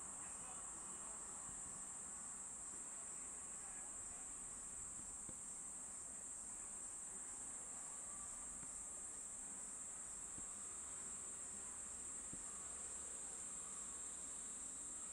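Insects, crickets or cicadas, chirring in a steady high-pitched drone with a slight even pulse, faint and unbroken, with no train passing.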